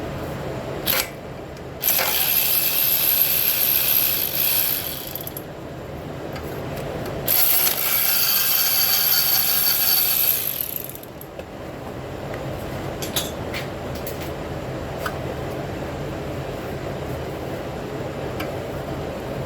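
Pneumatic air ratchet running in two bursts of about three seconds each, with a hiss of air, plus a few short metallic clicks between them, as exhaust fasteners on a Honda Civic's catalytic converter are worked.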